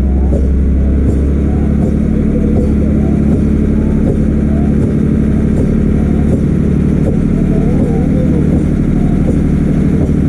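Motorboat engine running steadily at speed, with voices calling faintly over it.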